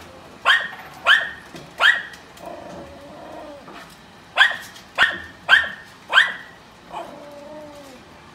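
A small dog barking sharply: three barks, a pause of about two seconds, then four more, with a softer wavering sound in the gaps.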